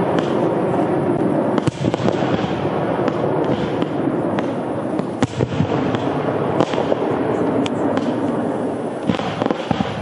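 Aerial fireworks going off: a dense, continuous crackle from the bursting shells, with sharp bangs every second or so.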